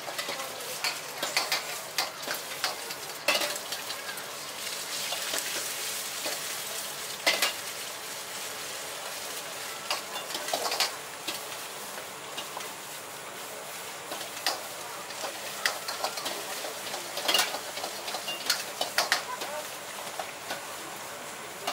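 Egg fried rice sizzling in a wok over a gas flame. A metal ladle scrapes and clacks against the wok in quick, irregular strokes.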